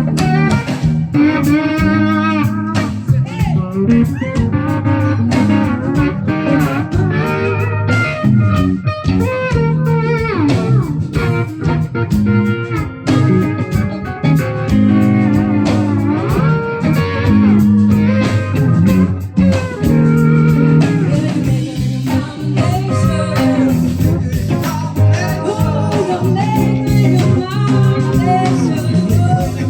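Live band playing an instrumental break: electric guitar soloing with bending notes over the band's bass and rhythm.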